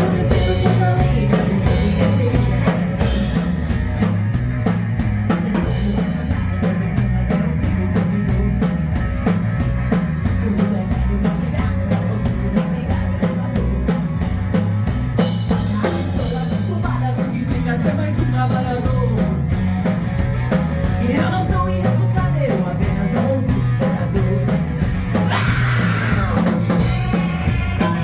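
Rock band playing live in a rehearsal studio: a drum kit keeps a steady beat with cymbal strokes over a heavy bass line, and electric guitar plays in the mix.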